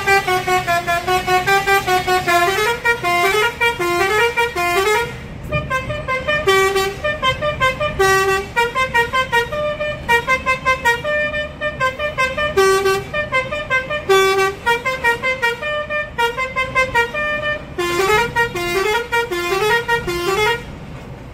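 A bus's multi-tone 'basuri' telolet air horn playing a melody of short pitched notes, some of them sliding, almost without pause. The bus's road rumble runs underneath.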